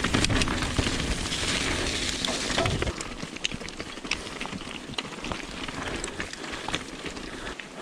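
Mountain bike tyres crunching and rattling over a rocky, gravelly singletrack, with many small clicks of stones and bike parts. A low rumble under it drops away about three seconds in.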